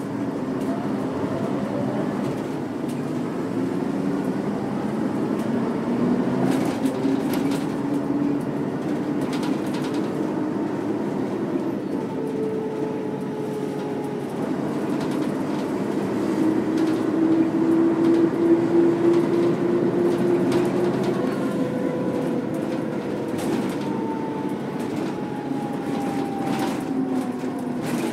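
Mercedes-Benz O405 bus under way, its OM447H six-cylinder diesel and ZF 4HP500 automatic gearbox whining and rising in pitch as it pulls away through the gears. Near the end a higher whine falls away as it slows. A few sharp clicks and knocks are heard along the way.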